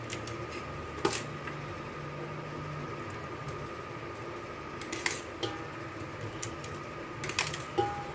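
Metal spoon clinking a few times against an aluminium pot and a steel bowl as parboiled rice is scooped and spread. The sharpest clinks come about a second in, around five seconds and near the end, over a steady background hum with a faint constant whine.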